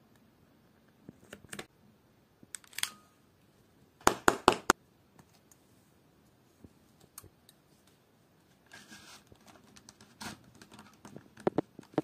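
Handling sounds from leatherwork: scattered clicks, taps and rustles as scissors, a leather knife sheath and a folding knife are worked by hand on a mat. About four seconds in comes a quick run of five loud, sharp clicks, and near the end there is rustling mixed with more clicks.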